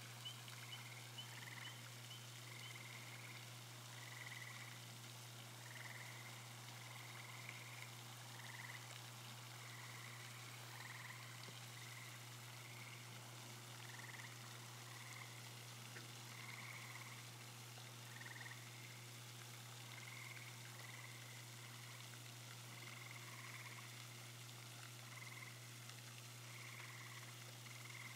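Faint chorus of frogs, short calls of about half a second repeating irregularly, over a steady low hum.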